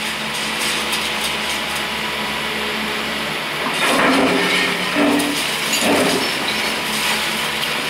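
Liebherr R944 demolition excavator's diesel engine running steadily as its bucket tears into a concrete building. From about four seconds in come three loud crashes of breaking and falling concrete, about a second apart.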